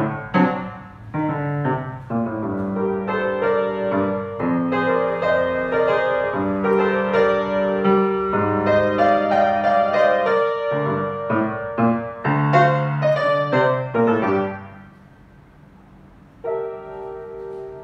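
Grand piano played, a dense passage of chords and melody. About fifteen seconds in it dies away, then a single chord is struck near the end and left to ring.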